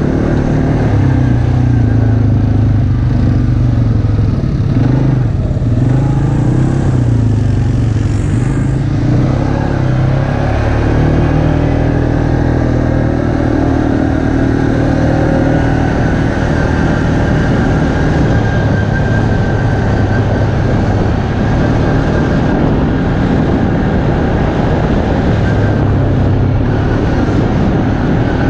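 ATV engine running on the move, its pitch rising and falling over the first ten seconds or so, then holding fairly steady.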